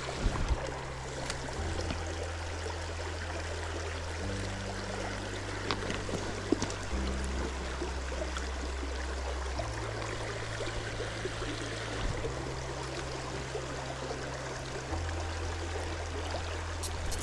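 River water running, with background music over it playing a slow, steady bass line that steps to a new note every two to three seconds.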